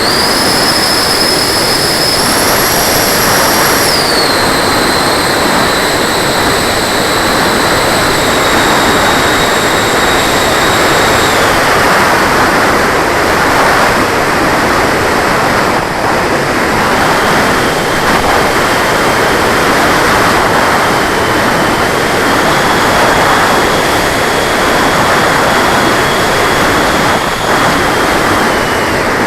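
90 mm electric ducted fan of an RC jet, heard on board: a high whine over a steady rush of air. The whine steps up in pitch twice near the start, drops back about four seconds in, falls lower about twelve seconds in, then rises slightly in small steps, following the throttle, and drops again near the end.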